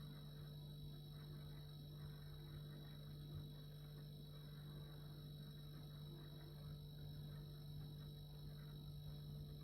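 Refrigerator running, a faint steady low hum with thin steady higher tones above it.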